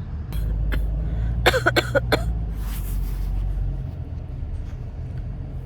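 A quick fit of about five coughs, a second and a half in, over the low rumble of a car running. It is the chesty cough that has not cleared for about two months.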